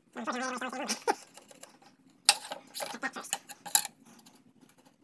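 A brief bit of a man's voice, then several sharp clacks and knocks as wooden strips and a metal square are handled and set down on the work surface, two of them much louder than the rest.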